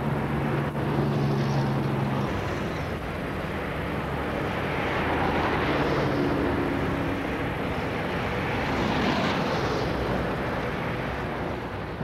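A NSW 48 class diesel-electric locomotive running as it moves past, its ALCo six-cylinder diesel engine giving a steady hum for the first couple of seconds and then a louder, rougher rush of engine and running noise.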